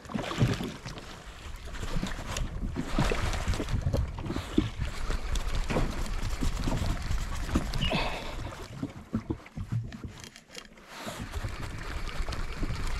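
Wind buffeting the microphone, with water lapping against the side of a jet ski and a few small knocks.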